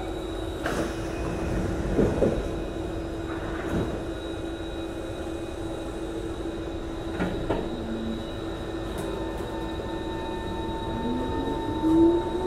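Inside an MRT train carriage: the sliding doors close with a few knocks and a thud about two seconds in, then a steady electrical hum while the train stands. Near the end a rising whine from the traction motors starts as the train pulls away.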